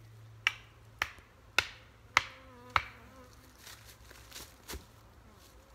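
Five evenly spaced hammer blows, about two a second, each leaving a short metallic ring, followed by one fainter knock near the end.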